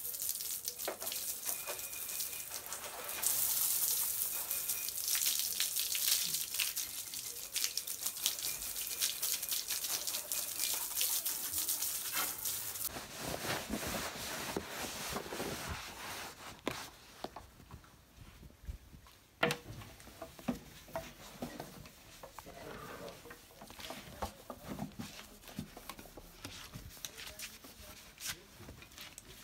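Garden hose spraying water onto a motorcycle's front wheel, a steady hiss that stops about 13 seconds in. After it, a cloth rubbing and wiping over the bike's metal and chrome, in short uneven strokes.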